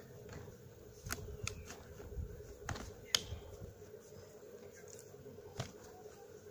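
Plastic clicks and snaps of a Jane Rider pram carrycot's hood and frame fittings being handled and clipped into place: about five sharp clicks, the loudest a little past three seconds in.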